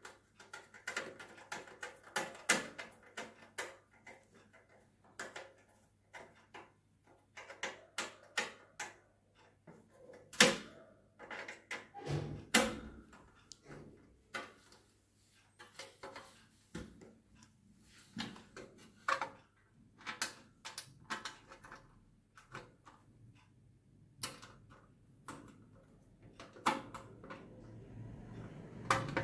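Irregular clicks, knocks and clatter of a screwdriver turning screws into a quartz heater's sheet-metal casing, with the metal body and wire guard knocking as it is handled.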